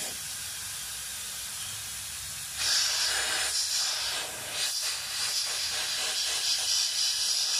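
Pressurised steam hissing out of a pressure cooker's open vent pipe with the whistle weight lifted off, the cooker releasing its pressure. The hiss gets louder about two and a half seconds in and stays strong, wavering a little.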